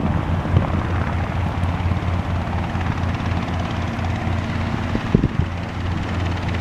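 Robinson R22 Beta helicopter in flight: its piston engine and two-blade rotor give a steady, continuous drone. A couple of brief knocks come about five seconds in.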